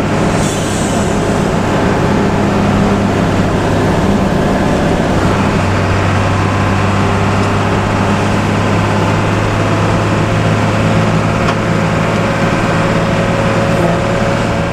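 Intercity bus's diesel engine running steadily under way, heard from inside the cabin as a low, even hum over road noise.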